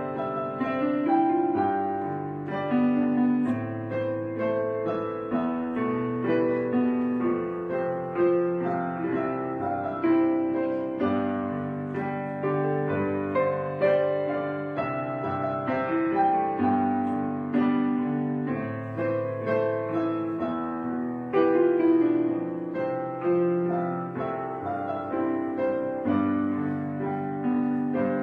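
Gentle background piano music, notes and chords changing every half second or so.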